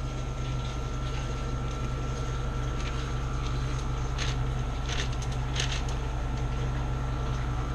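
Steady low hum with a faint thin high tone, like a kitchen fan or appliance running, with a few faint soft taps and rustles about halfway through as cookie dough is handled.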